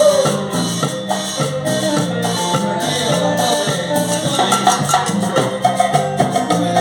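Latin dance music with shaken percussion and a repeating bass line, played loud through a sound system under test.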